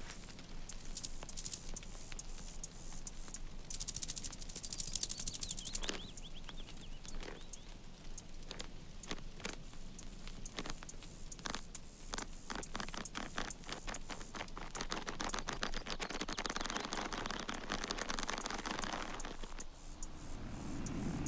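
Cartoon sound effects: a run of small clicks and taps, with a fast, high rattling buzz for about two seconds near the start and a stretch of rustling late on.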